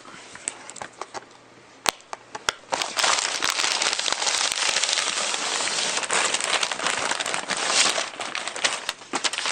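Gift-box packaging being opened by hand: a few scattered clicks and taps, then from about three seconds in a steady run of crinkling and crackling as the wrapping is torn and handled.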